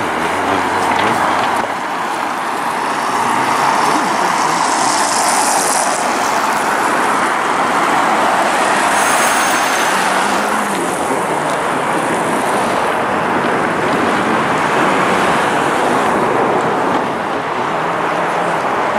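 Road traffic: cars and a van passing on a city street, a steady wash of engine and tyre noise.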